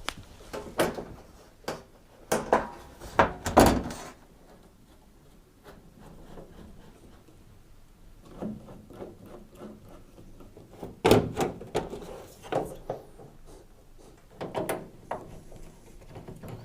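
Tumble dryer side panels and top being fitted back on: a run of knocks, thunks and sliding clunks, several in the first few seconds, then a quieter stretch, then more clunks in the second half.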